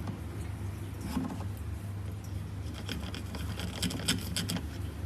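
Handling noise: scattered light clicks and rustles, busiest about a second in and again in the second half, over a steady low hum.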